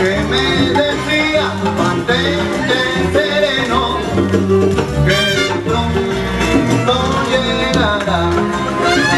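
Salsa music with a singing voice over a steady, driving bass line.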